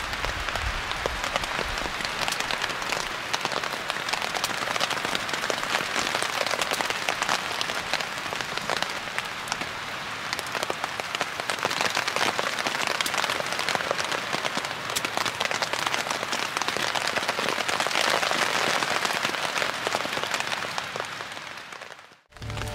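Steady rain falling, a dense patter of many individual drops hitting a surface, fading out at the very end.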